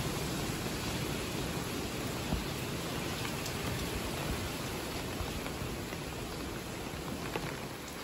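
Steady rain falling on leafy trees, an even hiss with a few faint drop ticks.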